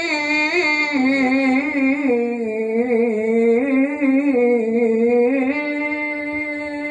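A man's voice chanting Quranic recitation (tajweed) in one long drawn-out melodic phrase, the pitch wavering and ornamented on the held vowels.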